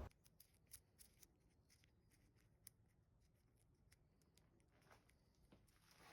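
Near silence, with faint scattered small clicks and two soft rustles near the end.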